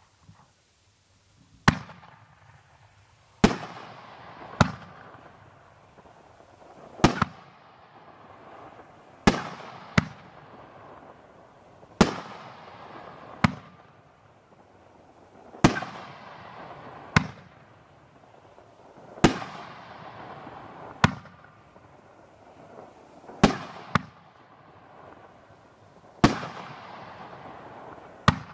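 A 500-gram, twelve-shot consumer fireworks cake firing shot by shot: sharp bangs every one to two and a half seconds, each one trailing off before the next.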